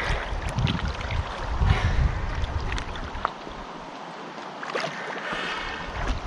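Water sloshing and splashing at the surface, with wind buffeting the microphone in uneven low rumbles that ease off for a couple of seconds past the middle.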